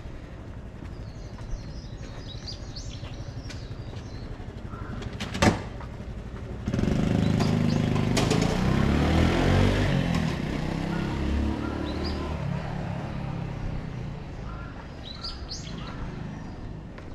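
A motor vehicle passes close by, its engine note sliding lower as it goes and fading away over several seconds. Small birds chirp before and after it, and there is a single sharp click just before the vehicle.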